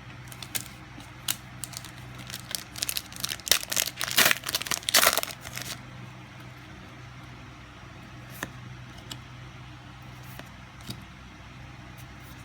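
A foil trading-card booster pack being torn open and crinkled: a flurry of sharp crackling rustles, loudest around four to five seconds in, stopping at about six seconds. A steady low hum continues underneath, with a few light clicks later on.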